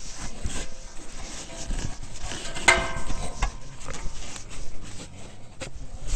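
Hands handling and fitting a plastic intake duct and snorkel fittings in an ATV's engine bay: irregular knocks, clicks, scrapes and rustling, with one short pitched sound about three seconds in.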